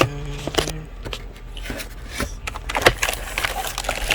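Handling of a boxed keyboard and its plastic packaging: scattered clicks, knocks and rattles, with a brief low steady tone in the first second.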